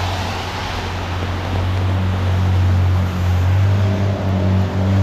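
Rain falling on an umbrella and car tyres hissing on a wet road, over a steady low wind rumble. About two seconds in, a vehicle engine's steady hum joins in and holds.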